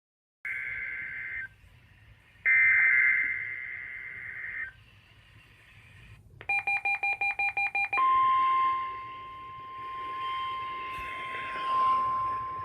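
NOAA weather radio sounding its required weekly test. Two bursts of shrill digital alert-header data come first, then a rapid string of about ten beeps. From about eight seconds in, the steady single-pitch warning alarm tone plays over light radio static.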